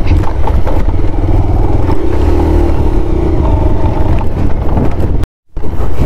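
Motorcycle engine running at a steady low riding speed on a dirt track, under a heavy low wind rumble on the microphone. The sound cuts out completely for a moment a little after five seconds in.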